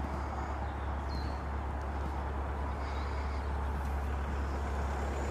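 Outdoor ambience: a steady low rumble, with a couple of faint, short bird chirps about a second and three seconds in.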